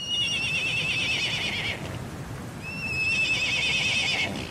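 A horse whinnying twice, each a wavering, slightly falling neigh about a second and a half long, over the steady rush of floodwater.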